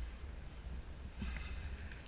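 Low, steady rumble of wind buffeting the microphone, with a faint hiss rising about a second in.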